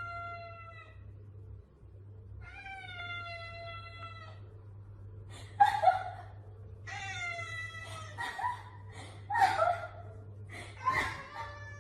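A domestic cat meowing over and over: several long, drawn-out meows, then shorter ones coming closer together.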